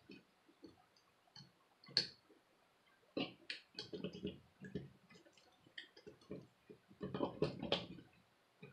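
Small scattered clicks and taps of hands handling laptop parts and screws during reassembly, with one sharp click about two seconds in and denser bursts of handling noise around the middle and near the end.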